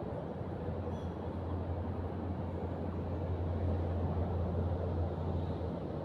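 Low, steady rumble of a distant engine that swells over a few seconds and fades near the end.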